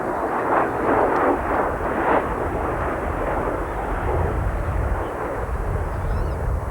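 Several small glow-fuel RC car engines buzzing together as the cars race, the sound rising and falling as they pass.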